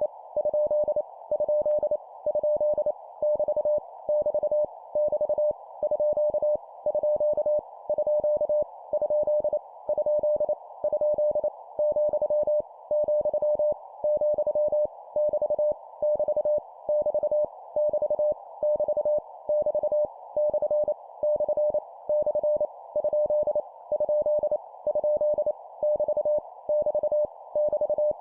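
Morse code (CW) at 25 words per minute: a single steady beep tone keyed in short dots and longer dashes, sent as practice characters in groups with short gaps between them. A faint band of hiss sits under the tone throughout.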